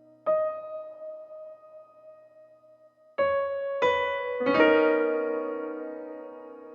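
Background music played on a soft piano-like keyboard: a single note rings out and fades, then three notes follow each other about three seconds in, building a chord that rings and slowly dies away.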